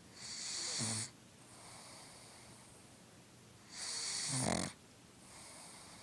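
Sleeping pug snoring: two loud, hissy snoring breaths about a second long, one at the start and one about four seconds in, each ending in a low rattle, with quieter breaths between them.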